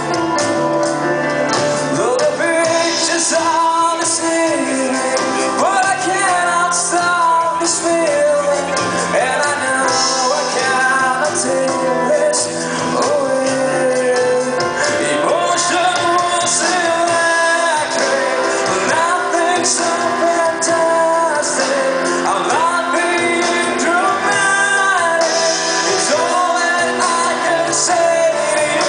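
Live band playing a song: guitars, drum kit and hand drums, with a voice singing over them.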